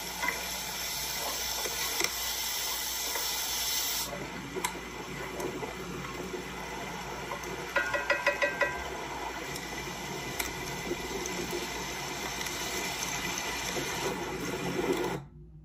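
Running water, a steady hiss that is stronger for the first four seconds, then quieter. Scattered clicks, with a quick run of them about eight seconds in.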